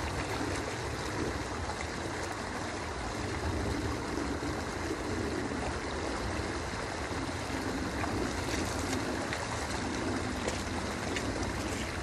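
Shallow river water running steadily over a low concrete crossing, with some sloshing as a person wades through it.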